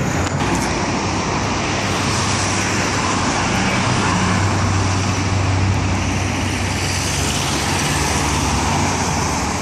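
Street traffic: cars passing close by, a steady rush of tyres and engines, with a deeper engine hum swelling through the middle.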